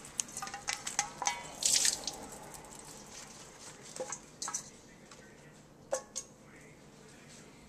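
Romaine lettuce being shaken and drained in a stainless-steel colander in a sink: water splashing and dripping, with clinks and knocks against the metal colander. It is busiest in the first two seconds, then comes only as a few scattered knocks.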